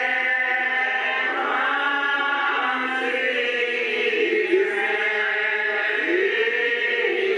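Background music of voices singing a slow, chant-like choral line with long held, gliding notes.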